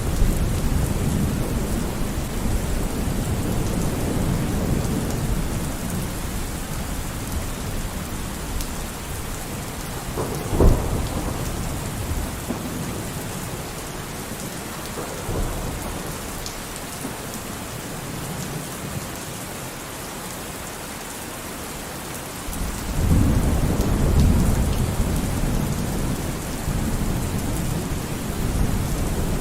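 Steady rain with rolling thunder. The rumble dies down after a sharp thunderclap about a third of the way in, and a new rumble rolls in about three-quarters of the way through.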